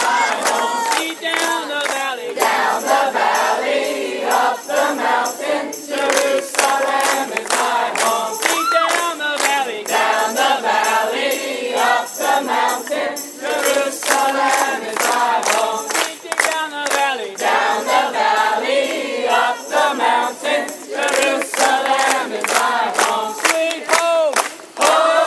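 A large crowd of many voices singing and calling out together, overlapping, with music and frequent sharp hits.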